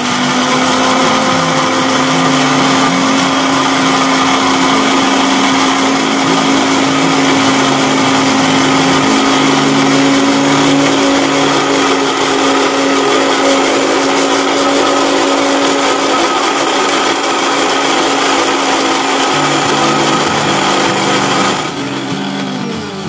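Electric countertop blender running steadily at full speed, grinding candlenuts, shallots and garlic with a little water into a spice paste. Near the end it is switched off and the motor winds down with a falling hum.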